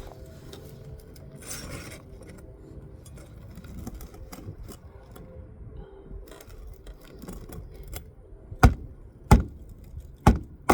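Quiet handling and scraping, then four sharp hammer blows near the end, under a second apart, driving a roofing nail flush under a lifted asphalt shingle.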